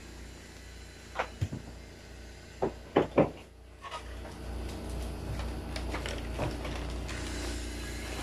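A few sharp knocks and clacks of things being moved while someone rummages for an item out of view. The loudest are two close together about three seconds in, followed by a quieter, steady handling noise.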